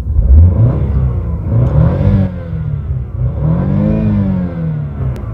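Car engine revved hard twice while parked, the pitch climbing and falling back each time, the second rev reaching around 6,000 rpm.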